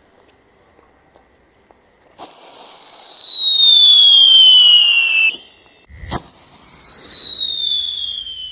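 Whistling 'mouse' firecrackers (pháo chuột) running along a steel wire, very loud and ear-piercing. After a faint fizz, one starts with a crack about two seconds in and whistles for about three seconds, its pitch falling steadily, then cuts off. A second one starts with a crack about six seconds in and whistles downward again, fading near the end.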